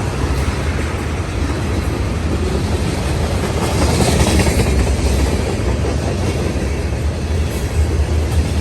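CSX freight train rolling past with a steady, loud rumble of wheels on the rails.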